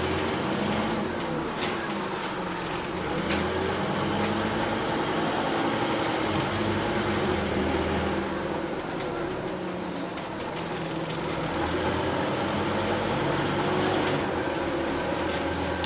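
Interior noise of a Scania OmniCity double-decker bus on the move: the diesel engine drones steadily over road noise, its note shifting up and down several times as the bus drives on, with a few brief rattles.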